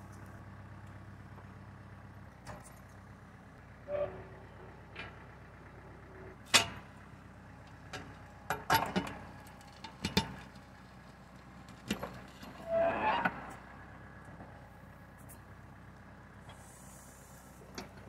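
Kubota L4200 diesel tractor engine running steadily while its backhoe digs, with scattered clanks and knocks from the bucket and boom, the loudest about six and a half seconds in, and a short scraping stretch near the middle. The backhoe hydraulics are working again after replaced hoses.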